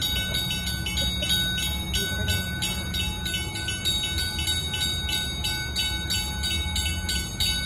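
Movable-bridge warning bell at the lowered traffic gate, ringing steadily at about three strokes a second, signalling that the bridge span is raised and closed to traffic. Under it runs a low steady rumble.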